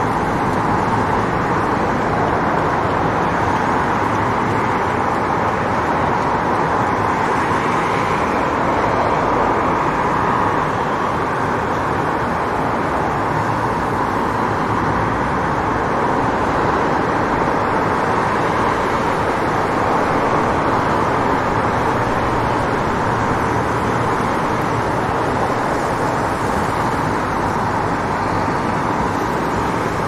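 City street traffic ambience: a steady wash of passing cars with no single event standing out.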